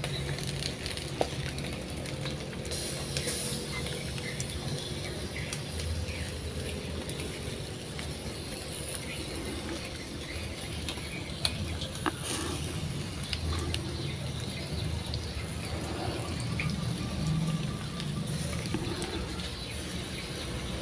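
A whole fish sizzling over glowing charcoal in a wire grill basket as it is basted with spice paste: a steady hiss with scattered small crackles and pops.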